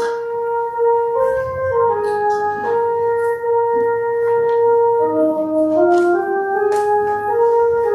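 Church organ playing offertory music: slow, sustained chords in several parts moving step by step, with a low bass note held through the middle.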